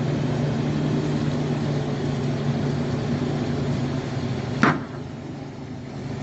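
A motor running steadily with a low hum, then a single sharp knock about four and a half seconds in, after which the sound is quieter.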